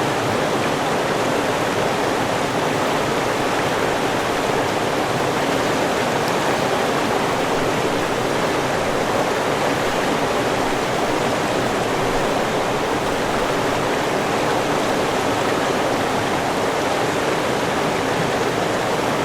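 River water running and rushing in a steady, unbroken wash.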